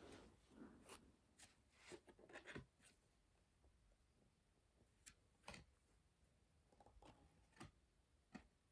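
Near silence broken by about ten faint, scattered clicks and rustles, with no steady sound.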